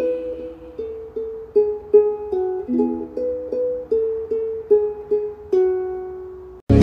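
Gentle instrumental music on a plucked string instrument, picked notes in a slow pattern without singing. The last note rings out and fades, and the music stops abruptly near the end.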